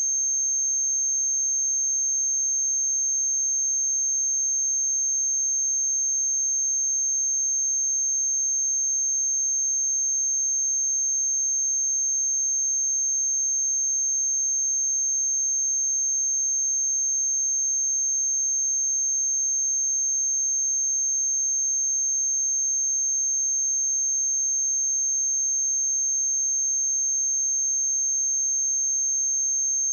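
A pure 6368 Hz sine-wave test tone, a single high-pitched steady note that does not change in pitch or loudness.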